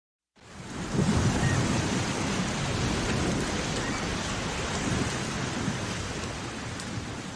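Wind buffeting the microphone: a steady rushing noise with an uneven low rumble. It comes in about half a second in and grows gradually quieter toward the end.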